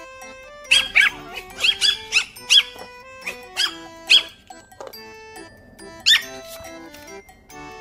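White Pomeranian puppy yapping in short, high-pitched barks, about ten in quick clusters over the first four seconds and one more about six seconds in, over background music.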